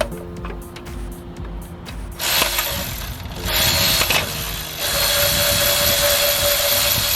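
A power tool runs in three bursts on a 10mm bolt of a Honda D16 water pump, backing it out. The first two bursts are short. The last lasts about two and a half seconds, with a steady whine.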